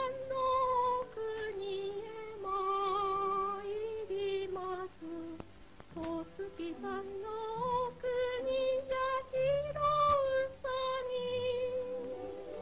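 A woman's voice singing a slow melody with vibrato, holding long notes.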